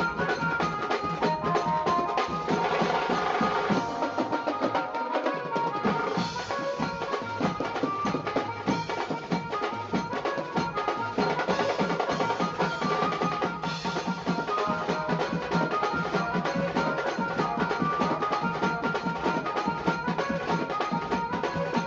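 Music with a busy, steady drum beat and melodic instruments.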